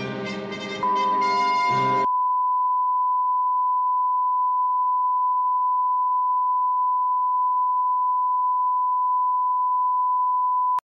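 Music with several held notes fades out about two seconds in, as a steady single-pitch television test-card tone starts under it. The tone then runs alone at an even level and cuts off abruptly just before the end.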